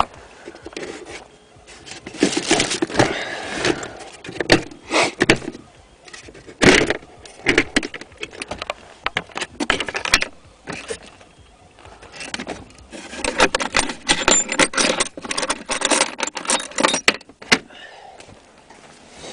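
Honda Civic D16Z6 engine turned over by the starter in three separate bursts, the longest lasting about four seconds; it cranks but does not start.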